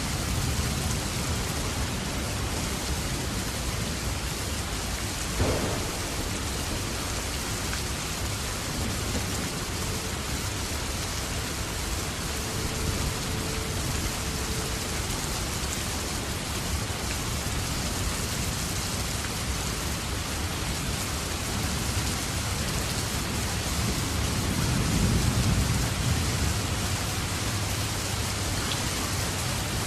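Steady rain falling and pattering on surfaces. A single sharp knock about five seconds in, and a low rumble swells for a couple of seconds near the end.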